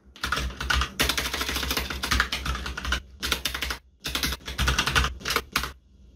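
Fast typing on a computer keyboard, a rapid patter of key clicks in runs that break off briefly about three and four seconds in.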